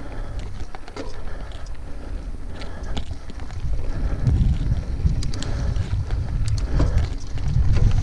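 Yeti SB6 full-suspension mountain bike riding down a dirt trail strewn with dry leaves: a low wind rumble on the microphone, tyres rolling over dirt and leaves, and scattered clicks and rattles from the bike. The rumble gets louder about halfway through as the bike picks up speed.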